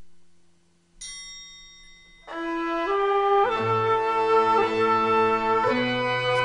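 Soundtrack music: a single ringing note about a second in, then a melody of held notes from about two seconds in, joined by a low bass line.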